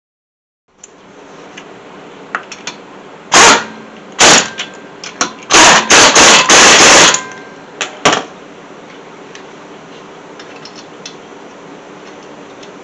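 A series of loud clanking, rattling bursts as the front wheel is put back on the hub. There are two short ones, then a longer clattering run of about a second and a half, then a last knock.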